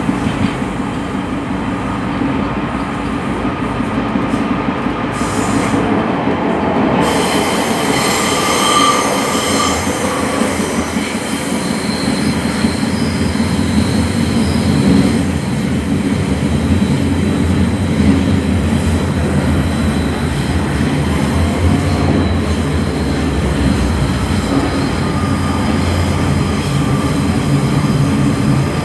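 Class 142 Pacer railbus running, heard from inside: a steady rumble of engine and wheels on the track. High, thin wheel-squeal tones come and go between about eight and fifteen seconds in.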